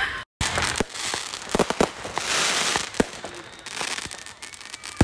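Fireworks going off: a run of sharp pops and crackles, with a dense crackling hiss about two seconds in and a louder bang about three seconds in.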